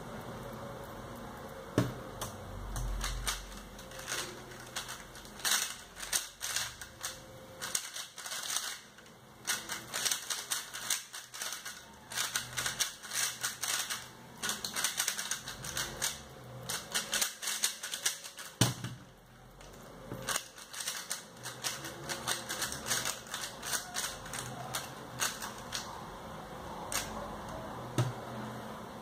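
A 3x3 speedcube's plastic layers clicking and clacking as they are turned fast by hand in a speedsolve, in rapid flurries broken by short pauses. A few sharper knocks stand out above the clatter.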